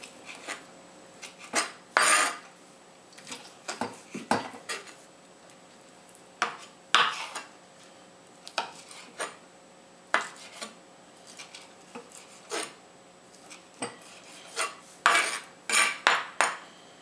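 Kitchen knife tapping on a plastic cutting board as a raw chicken breast is sliced into bite-size pieces: irregular sharp taps with pauses between them, a quick run of several taps near the end.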